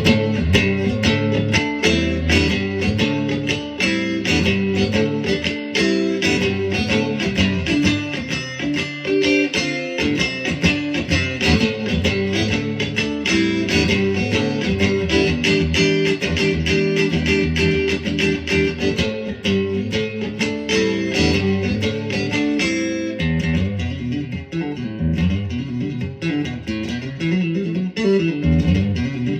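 PRS SE Swamp Ash Special electric guitar played on its neck pickup in single-coil (coil-split) mode, with steady playing that thins out a little about three-quarters of the way through.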